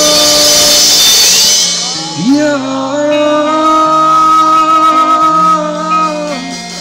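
Live band music: a man sings into a microphone over electric guitar and drums, holding a long wavering note through the middle.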